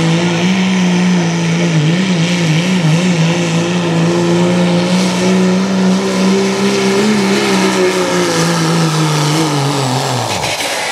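Turbocharged Cummins straight-six diesel in a Dodge Ram pickup at full power pulling a sled, its engine note steady with slight wavering. About ten seconds in the pitch drops sharply as the engine winds down at the end of the pull.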